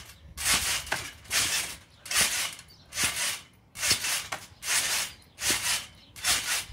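Someone bouncing repeatedly on a garden trampoline, with a rhythmic whooshing rustle on each bounce, about eight in a row, a little more than one a second.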